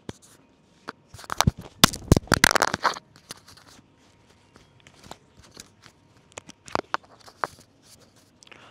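Crackling, scraping handling noise close to the microphone as the phone is moved about. There is a dense run of sharp crackles from about one to three seconds in, then a few scattered clicks later.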